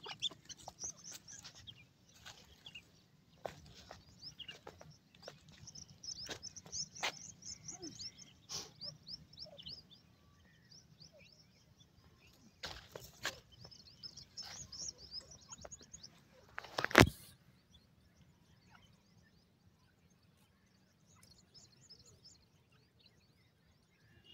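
Grey francolin chicks peeping in quick runs of high, thin chirps, with scattered soft clicks and one loud thump about two-thirds of the way through.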